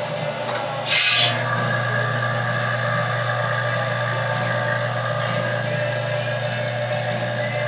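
Centroform EZFORM LV 1827 vacuum former pulling a heated styrene sheet over molds: a short, loud rush of air about a second in as the vacuum opens, then the vacuum pump running steadily under load with a steady hum.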